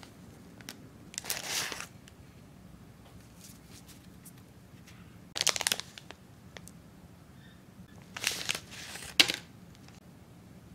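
Wrappers of Japanese monaka sweets rustling in three short bursts: a paper wrapper crinkles about a second in, then a plastic packet crinkles and is opened in the last bursts, about five and eight seconds in.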